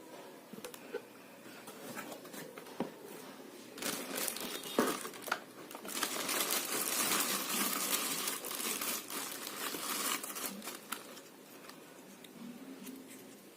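Crinkling and crumpling of material: a few light clicks and rustles at first, then dense crinkling from about four seconds in, loudest in the middle, dying down after about eleven seconds.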